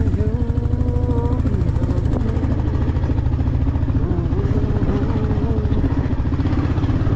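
Motorcycle engine running at low speed with a steady, fast-pulsing low throb. A higher tone above it wavers up and down near the start and again from about four to six seconds in.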